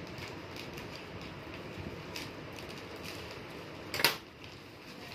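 Plastic delivery bags rustling and crinkling as they are handled and opened, with scattered small clicks and one sharp, loud crackle about four seconds in.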